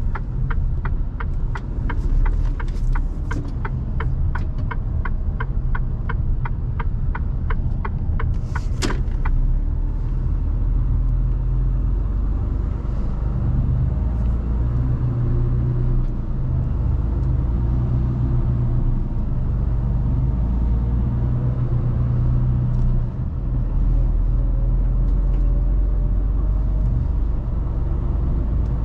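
Inside a Mercedes Actros truck cab: the turn indicator ticks rapidly and evenly, then stops about eight seconds in. A short hiss follows about a second later, and the truck's diesel engine hums low as it drives.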